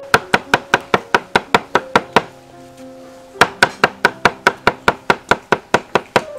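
Meat cleaver chopping cooked beef tripe on a round wooden chopping board in quick, even strokes, about five a second, with a pause of about a second roughly two seconds in. Background music plays underneath.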